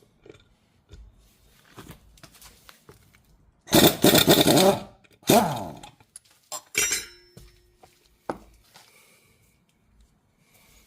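Hand tools working on the scooter's rear brake disc rotor bolts, with metal clinks throughout. There is a loud burst about four seconds in, then a shorter one that falls in pitch, and sharp clicks later.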